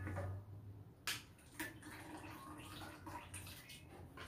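Metal cooking utensils clicking against a wok a few times, with faint dripping and splashing as wet boiled noodles are lifted out over a wok of liquid.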